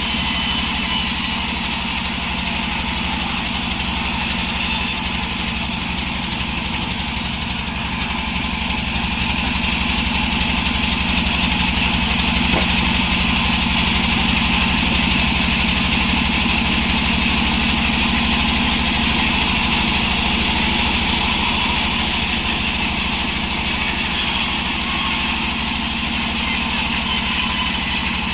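Sawmill engine running steadily, a little louder through the middle.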